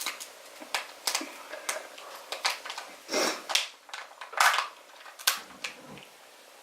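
Irregular clicks, taps and rustles of small objects being handled, with a few longer rustling swells about three and four and a half seconds in.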